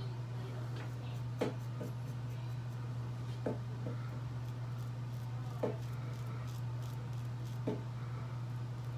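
Vintage Gillette safety razor scraping in short strokes through lather and stubble on the upper lip and chin, over a steady low hum. A short knock sounds about every two seconds.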